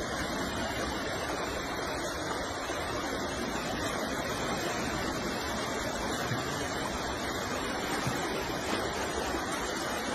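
Rushing river rapids: a steady, even rush of fast white water.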